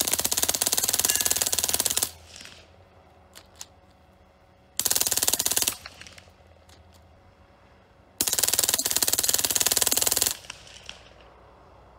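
Full-auto .22LR machine gun firing tracer rounds in three long bursts of very rapid shots: about two seconds, then about one second, then about two seconds. A few faint single cracks come between the bursts.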